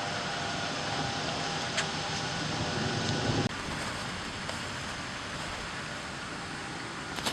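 Steady road and engine noise of a vehicle. It cuts off abruptly about three and a half seconds in and is replaced by a quieter, similar steady noise.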